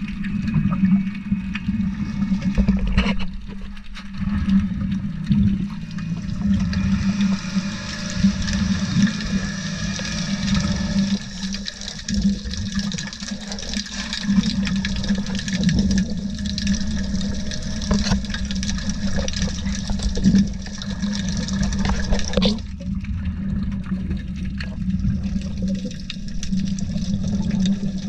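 Underwater sound: water and air bubbles rushing and gurgling over a steady low hum. The rushing thins out abruptly late on.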